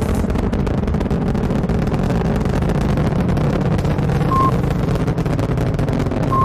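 Saturn V rocket engines roaring at liftoff: a steady, dense rumble. Two short beeps sound, about four and six seconds in.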